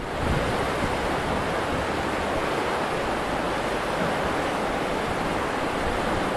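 Floodwater rushing with a steady, even roar.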